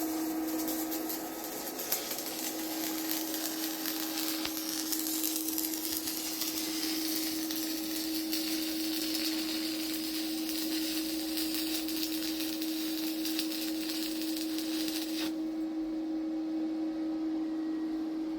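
Stick (electrode) welding: the arc hissing and crackling over a steady hum from the welder, the arc stopping suddenly about fifteen seconds in while the hum goes on.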